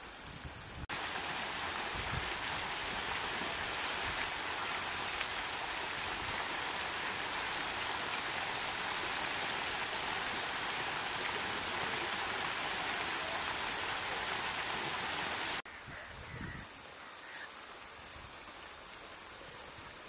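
Steady rain pouring down, a dense even hiss that cuts in suddenly about a second in and cuts off abruptly about three-quarters of the way through.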